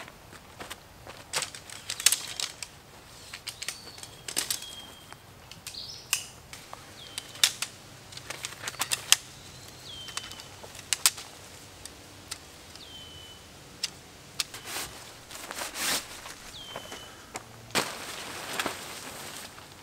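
Tent poles clicking and clacking as they are handled and fitted together, a sharp click every second or so. Near the end comes a longer rustle of tent fabric being shaken out. A bird repeats a short downward-slurred whistle every few seconds.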